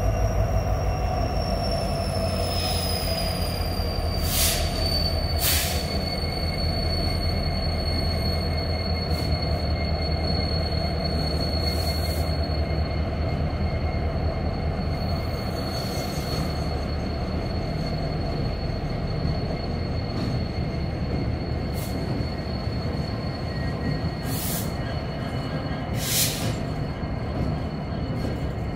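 Norfolk Southern diesel locomotives rolling slowly, their engines rumbling, with a steady high-pitched wheel squeal that slides down in pitch over the first few seconds and then holds. Sharp metallic clanks come now and then, twice close together about four and five seconds in, and twice more near the end.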